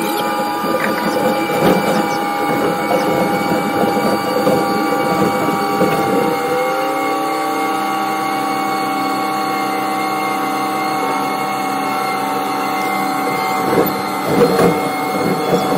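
Rail-working excavator running, its engine and hydraulics giving a steady whine. A pitch rises about five to seven seconds in, and a few clanks come near the start and end.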